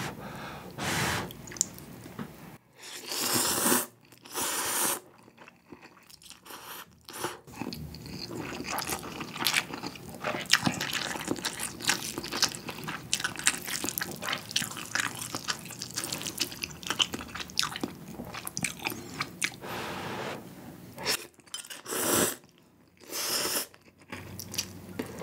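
Close-miked eating: ramen noodles from budae-jjigae slurped up in several long noisy pulls, with wet chewing and small clicks between them.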